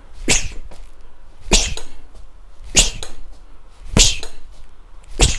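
Gloved fist punches landing on a hanging heavy bag, five in a steady rhythm about one every second and a quarter. Each thud comes with a sharp hissing exhale.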